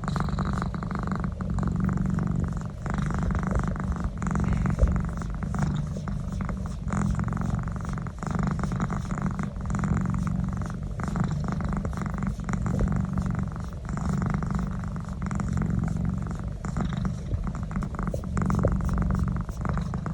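Domestic cat purring steadily while its neck is rubbed, the purr swelling and easing with each breath every second or two.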